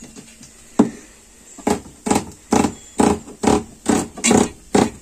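Large kitchen knife chopping a small onion directly on a stainless steel counter: one sharp knock about a second in, then a run of about eight chops, roughly two a second.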